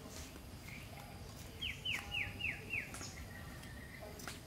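A bird calling: a quick run of five clear notes, each sliding downward, about four a second, followed by a short steady note. Under it is a low, steady background noise.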